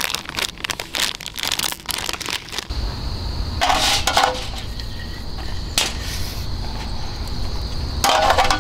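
Plastic instant-noodle packet crinkling and crackling in the hands. Then a butane canister being pulled out of a portable gas stove and a fresh one fitted, with a few short metal clanks and clicks over a steady low rumble, the last clank near the end.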